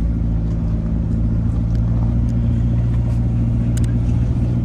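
A car driving along a road, heard from inside the cabin: a steady engine hum with road noise, holding an even pitch.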